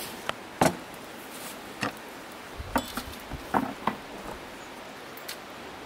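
Irregular sharp knocks and taps of a knife and utensils on a cutting board during food preparation, about eight in all, the loudest about half a second in, over a steady faint hiss.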